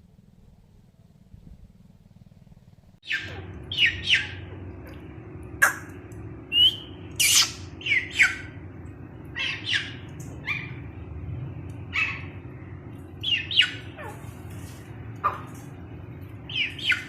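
Teetar birds calling: repeated short, sharp notes that fall in pitch, coming at irregular intervals over a steady low hum. The calling starts suddenly about three seconds in, after a quiet start.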